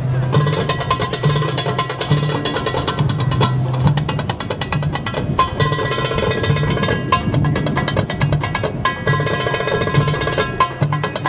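Oriental-style dance music with fast, busy hand-drum percussion over a sustained melody.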